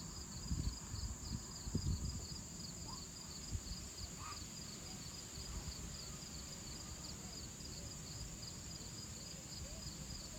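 Outdoor insect chorus: a steady high hiss with a higher chirp repeating about three times a second. Under it is low rumble, with a few bumps on the microphone in the first couple of seconds.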